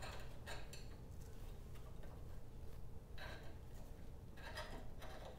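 Faint metallic clinks and light scraping as a steel bolt and nut are fitted by hand to a mini bike's clutch band-brake bracket, with a few irregular small contacts over a low steady hum.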